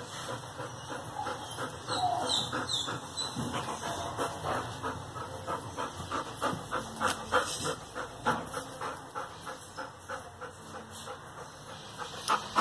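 A large dog panting close by in quick, even breaths.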